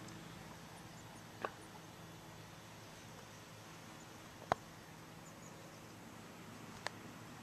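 Faint, steady hum of a distant RC airplane's motor overhead, broken by three short sharp clicks about a second and a half, four and a half and seven seconds in, the middle one loudest.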